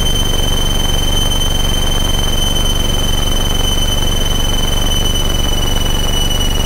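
Van's RV-7A's piston engine running steadily at low taxi power, a constant drone heard from inside the cockpit. A steady high-pitched whine sits over it, dropping very slightly in pitch.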